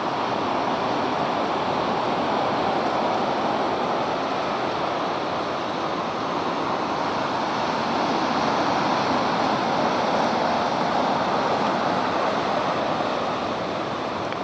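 Black Sea surf washing onto the shore: a steady rushing noise that swells a little about two-thirds of the way through.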